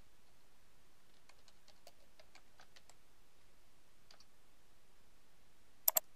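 Faint computer keyboard typing: a quick run of about a dozen keystrokes, then a couple more, as text is typed into a web page editor. Near the end come two louder, sharp clicks in quick succession.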